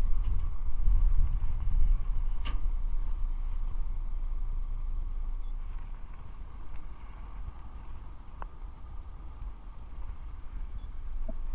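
Wind buffeting an action camera's microphone: a gusting low rumble that eases about six seconds in. A sharp click sounds about two and a half seconds in, and another about eight seconds in.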